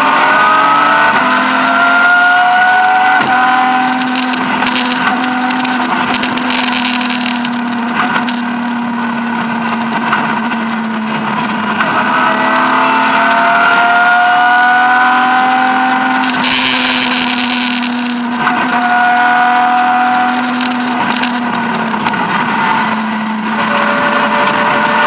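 BMW E36 M3 rally car's straight-six engine heard from inside the cabin, driven hard: the revs climb and fall again and again through gear changes and lifts. Twice a short burst of rushing, hissing noise rises over the engine.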